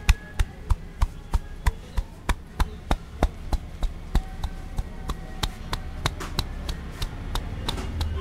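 A head massage by hand: the barber strikes the man's scalp with his clasped hands in a steady rhythm of sharp pats, about three a second, which grow softer in the second half.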